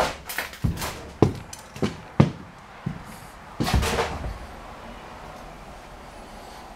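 Footsteps on a debris-strewn floor, a sharp knock about every half second, then a short scuffing noise near the middle and a faint steady hiss of room tone.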